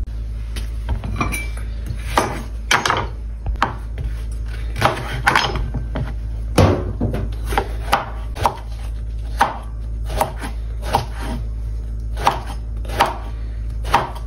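A kitchen knife chopping ridged luffa on a wooden cutting board: irregular sharp knocks of the blade through the gourd onto the board, roughly one or two a second, over a steady low hum.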